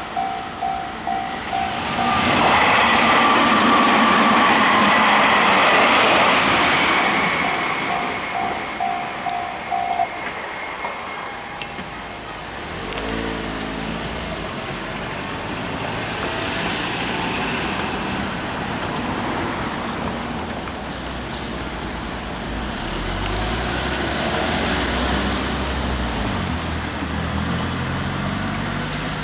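Railway level crossing warning bell dinging in quick repeated strokes while a train passes loudly for several seconds; the bell stops about ten seconds in. After that, steady road traffic, with a vehicle engine climbing in pitch as it pulls away.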